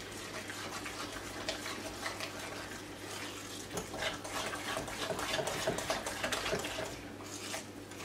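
A fork stirring thick strained yogurt and mashed white cheese in a glass bowl: steady stirring and scraping with many small clicks of the fork against the glass, a little louder a few seconds in.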